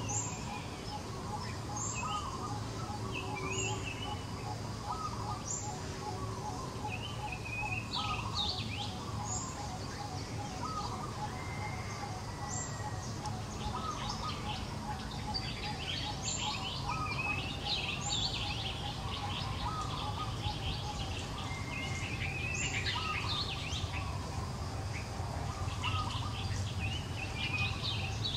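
Wild birds chirping and calling from several directions, with one short high note coming back every few seconds, over a steady low background rumble.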